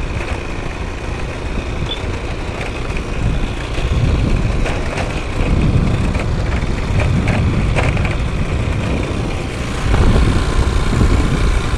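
Wind rushing over the microphone with a vehicle's engine running underneath, moving at steady speed; it gets louder about ten seconds in.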